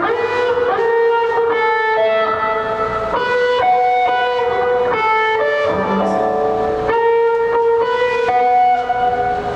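Electric guitar playing a melodic line of held, ringing notes that change about every half second.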